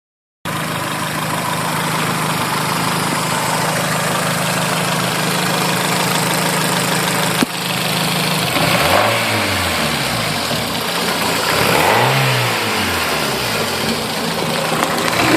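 Car engine idling steadily, then revved three times, each rev rising and dropping back to idle, with a short click about halfway. It runs without rod knock, the knock now cured.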